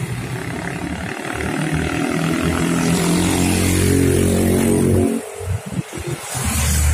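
Road traffic crossing the open level crossing: a car engine growing louder as it approaches, cutting off abruptly about five seconds in, then motorcycles passing.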